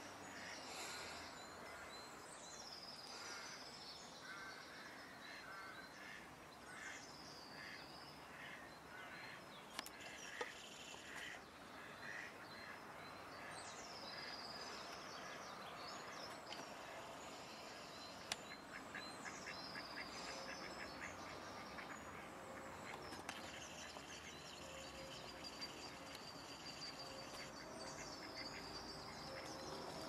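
Mallard ducks quacking softly, with a songbird repeating a short swooping whistled phrase every few seconds and some rapid chattering calls.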